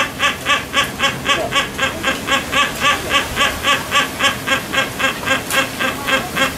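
Silvery-cheeked hornbill calling: a loud, fast, even series of short notes, about four a second.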